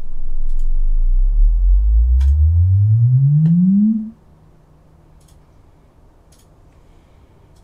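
Sunfire SDS-12 dual 12-inch subwoofer playing a bass measurement sweep with the microphone right at the driver: a deep tone rising steadily in pitch for about four seconds, then cutting off suddenly.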